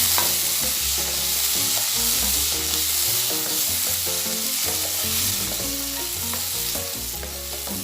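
Sliced potatoes and onion frying in a little oil in a pan, sizzling steadily as they are stirred; the potatoes are not yet cooked through.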